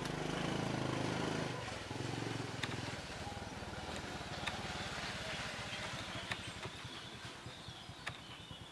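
An engine running steadily in the background, loudest in the first second and a half and then lower, with a few faint ticks scattered through.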